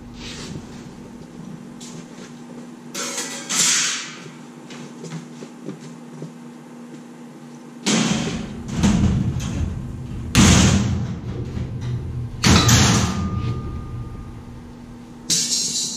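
Cut sheet metal being handled on a plasma table's steel slat bed: a series of separate thuds and metallic rattles a second or more apart. The loudest come in the second half, and between them there is a steady low hum.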